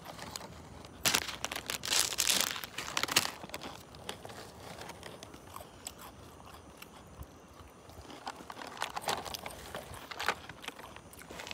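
A plastic snack packet crinkling and potato chips being crunched and chewed. The loudest, densest crackling comes in the first three seconds, with another short run of crunching near the end.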